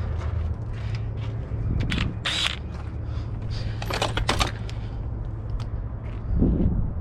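Scattered clicks, clinks and scrapes of hand tools and metal parts being handled during alternator removal on a truck, over a steady low hum. A duller thump comes near the end.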